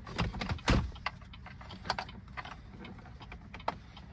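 Irregular plastic clicks and knocks from handling the car's center screen and trim assembly, the loudest just under a second in.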